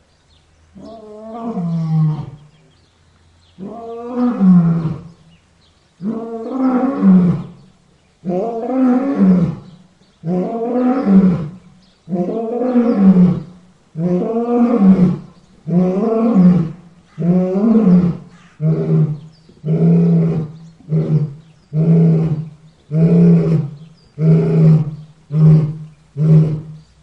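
A lion's roaring bout: a series of roars about two seconds apart that grow shorter and quicken into grunts about one a second in the second half.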